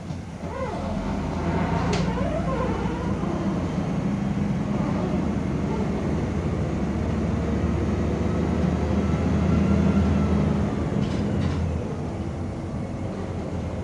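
Cabin sound of a MAZ-105 articulated city bus under way: the engine drone and road noise rise in the first second, are strongest about ten seconds in, then ease off near twelve seconds. A sharp click about two seconds in.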